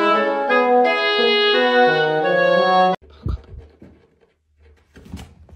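Instrumental background music with held melodic notes that cuts off abruptly about three seconds in, followed by a few soft, low thumps.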